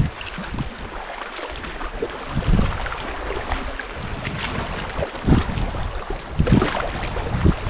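Shallow river water rushing and rippling around a canoe running a riffle, with the splash of paddle strokes and irregular low gusts of wind buffeting the microphone.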